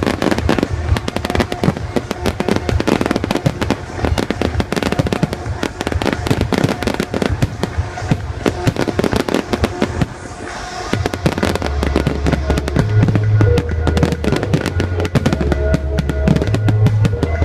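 A dense barrage of fireworks: a fast, unbroken string of bangs and crackling, over loud music with a heavy bass line that comes up strongly in the second half.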